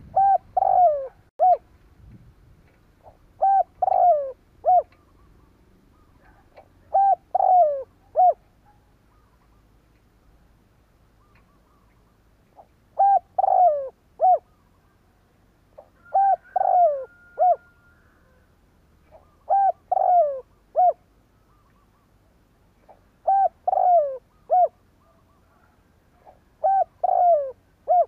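Male spotted dove (Streptopelia chinensis) kept as a tethered decoy, giving its three-note cooing song over and over, a phrase about every three to four seconds with a longer pause near the middle.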